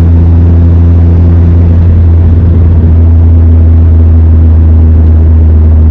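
Steady low rumble and drone of a car driving, heard loud and unchanging throughout.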